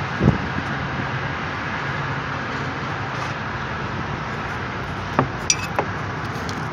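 A few small metallic clicks and clinks of hand work on a truck engine as a new manifold pressure/temperature sensor with a tight rubber seal is forced into its port. There is a dull knock near the start and a cluster of sharp clicks about five seconds in, one of them ringing briefly, over a steady background rumble with a low hum.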